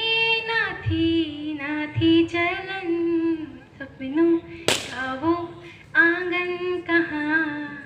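A girl singing unaccompanied into a microphone, with long held notes in a melodic line. A single sharp pop cuts across the singing a little past halfway.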